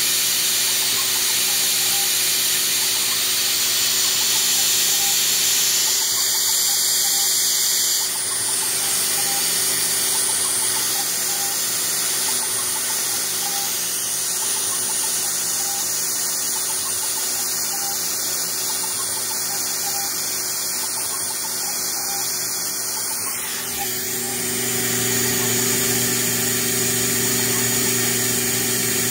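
CNC6040Z desktop CNC router spindle running steadily at high speed while it drills small holes in copper-clad CEM-1 circuit board. A faint short note repeats about twice a second through the first half as the machine works along the rows of holes, and a deeper hum comes in about three-quarters of the way through.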